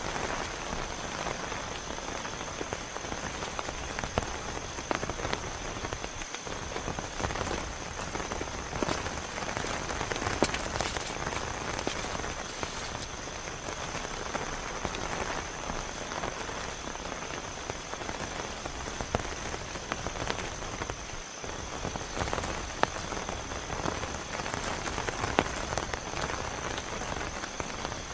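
Heavy rain falling steadily, with many sharp individual drop hits close by.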